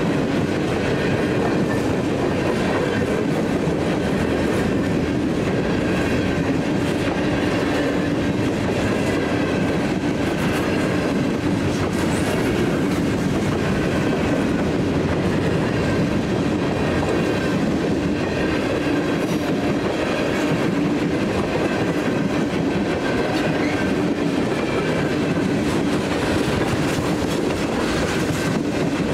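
Canadian National freight train's cars rolling steadily past, a continuous rumble of wheels on rail with faint high ringing tones.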